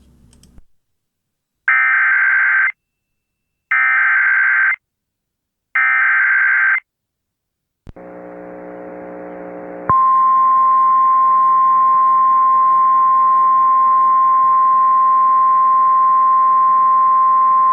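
Emergency Alert System SAME header: three warbling digital data bursts, each about a second long and a second apart. A low hum then comes in, and over it the steady 1050 Hz weather-radio attention tone sounds for about nine seconds, marking the start of a severe thunderstorm warning relay.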